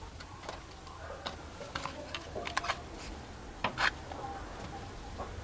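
Scattered clicks and taps of handling as a soft lump of moldable material is dropped into a small cardboard box and pressed down by hand, with the loudest pair of clicks a little under four seconds in.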